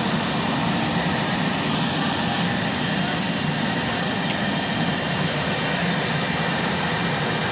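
Heavy construction machine's diesel engine running steadily, a constant low drone with no change in pace.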